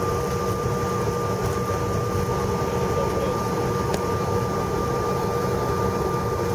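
Airliner cabin noise as a regional jet taxis after landing: the engines and air system give a steady rumbling hum with two steady whining tones over it. A faint click about four seconds in.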